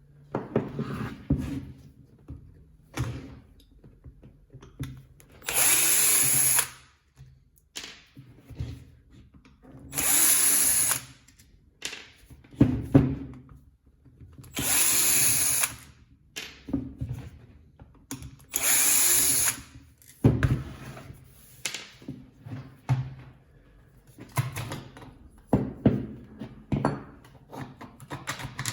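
A power tool runs in four short bursts of about a second each, with clicks and knocks of handling between them.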